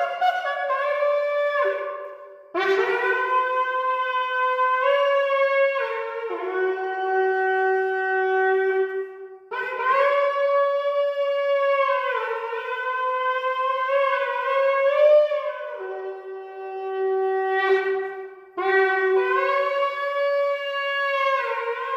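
A 36-inch shofar (ram's-horn trumpet) blown in four long blasts, each stepping up and down between a few notes, with brief breaths between them.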